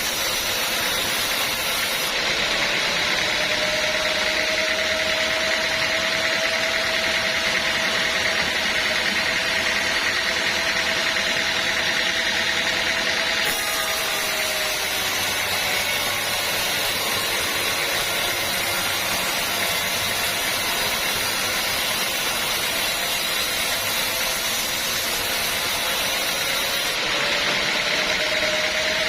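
Band sawmill running steadily, its blade cutting through a log, with a thin tone that drifts slightly in pitch.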